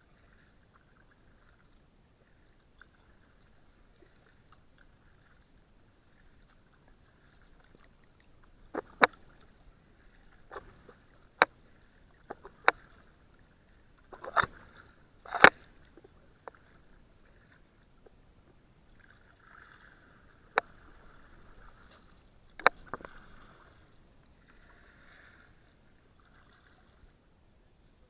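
Kayak paddling in calm water: a faint steady wash of paddle water, broken by a run of sharp clicks and splashes from about nine to sixteen seconds in and two more a little past the twenty-second mark.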